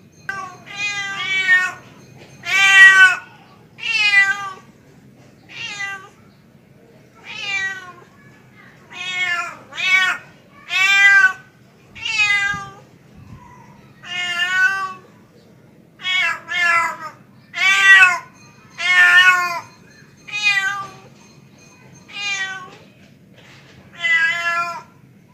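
Tomcat calling for a female: a long run of drawn-out meows, one every second or so, each rising and then falling in pitch.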